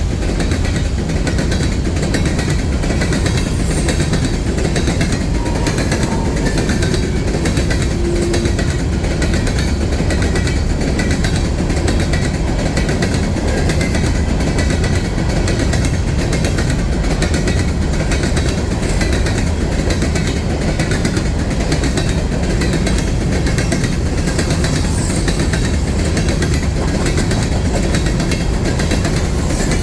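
Freight train of empty hopper cars rolling past, a steady heavy rumble with rapid rattling clatter of the cars and wheels on the rails.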